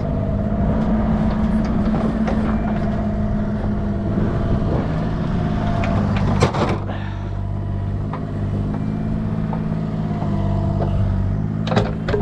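An engine running steadily at a constant speed, with a sharp knock about six and a half seconds in and another near the end.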